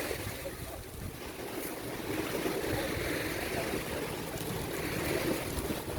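Surf washing onto the beach in slow swells, with wind rumbling on the microphone.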